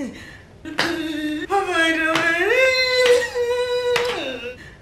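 A single voice singing one long drawn-out note that climbs higher about halfway through and is held, then fades near the end.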